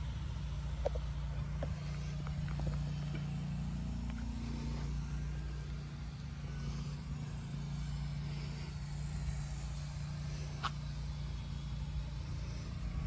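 A steady low mechanical hum, like an engine idling, with a few faint short clicks over it.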